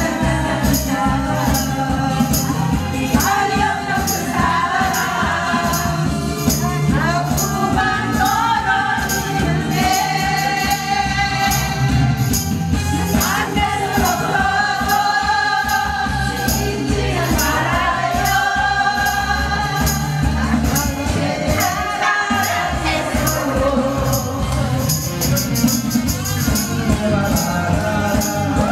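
Singing into a karaoke microphone over an upbeat backing track, with a steady beat and evenly spaced shaker- or tambourine-like ticks.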